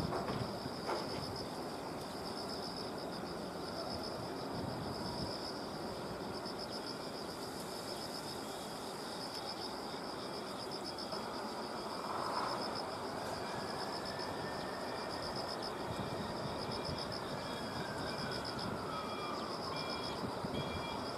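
Insects chirring in a steady, fast-pulsing high drone over a low outdoor rumble. A faint tone slowly rises and falls through the second half.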